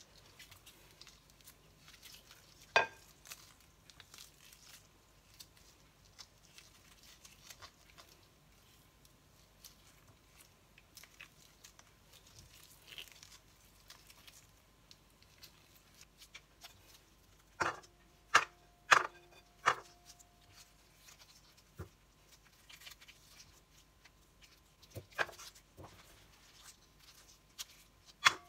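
Loquats being cut and pitted by gloved hands with a knife: quiet wet handling and rustling, broken by a few sharp clinks against the bowls. Four clinks come in quick succession about two-thirds of the way through, and one of them rings briefly.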